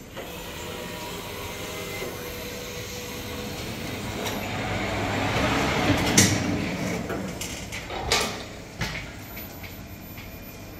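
Automatic fabric spreading machine's carriage running along the cutting table, laying fabric. Its running noise swells to a peak about six seconds in and then eases, with a few sharp clacks around six and eight seconds in.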